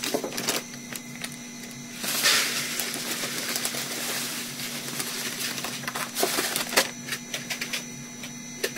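Bentonite clay cat litter poured from its plastic bag into a styrofoam box: a steady granular hiss that starts about two seconds in, loudest at first, and runs until near the end. Before it, crinkling and clicking of the plastic bag being opened and handled.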